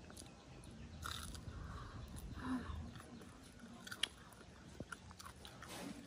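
A person chewing and biting a crispy batter-fried cheese fish cake: faint crunching with a few small sharp clicks.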